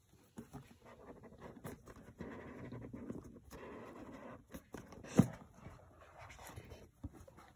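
Cardboard iPad Air retail box being handled and its lid pulled off by hand: rubbing, scraping friction for a couple of seconds with small taps, then one sharp knock a little after five seconds in, the loudest sound.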